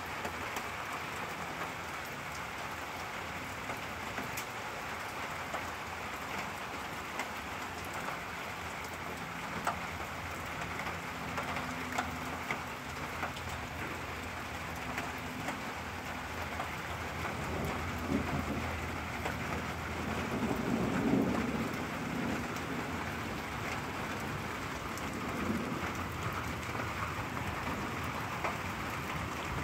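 Steady rain falling, with scattered sharp ticks of drops. About two-thirds of the way through, a low rumble of thunder swells and fades.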